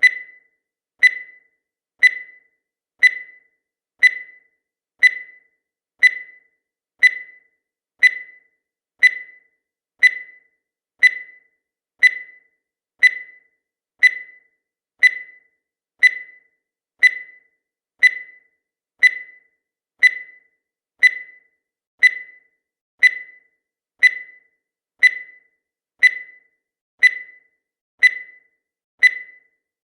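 Countdown timer sound effect: a short, high-pitched electronic beep once every second, each fading away quickly.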